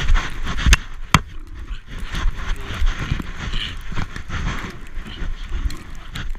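Knocks and scuffs on a GoPro worn by a Siberian Husky puppy playing in snow, as its fur and the snow rub and bump against the camera housing. There are two sharp knocks about a second in, then an uneven rustling.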